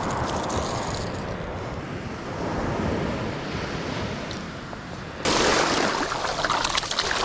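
Ocean surf washing up the beach, with wind on the microphone; a louder rush of water comes in suddenly about five seconds in.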